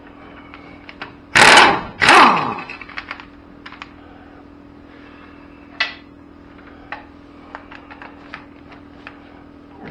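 Pneumatic impact wrench fired in two short, loud bursts on a wheel's lug nuts, the second winding down in falling pitch. Small clicks and knocks of the socket and nuts being handled follow.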